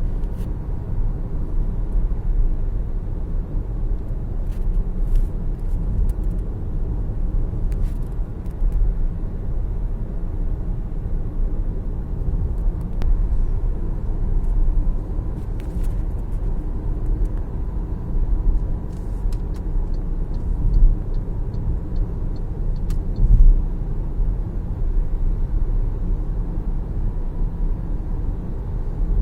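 MG ZS EV driving with a steady low road and tyre rumble. A few faint clicks come and go over it, including a short run of quick ticks about two-thirds of the way through.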